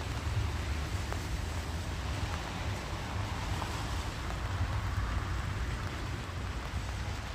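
Wind rumbling on a phone's microphone over a steady hiss of rain and traffic on wet roads. The hiss swells for a few seconds in the middle.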